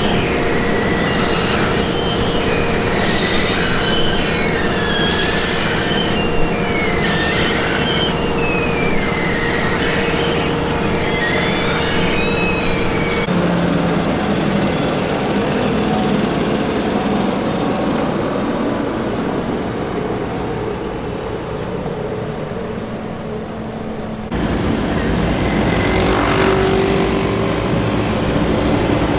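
Heavy road-building machinery at asphalt paving works running with a steady engine hum and high, wavering metallic squeals through the first dozen seconds. The sound changes abruptly at about 13 seconds to a duller hum, then at about 24 seconds to a louder, deeper rumble.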